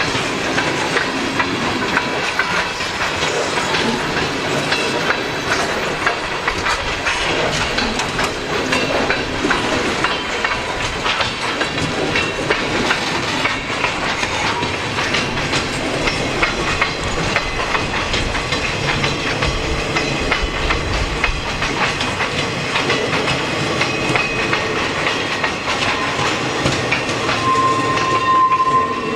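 Freight train cars rolling past at speed, wheels clicking steadily over rail joints. A steady high tone sounds for about a second and a half near the end.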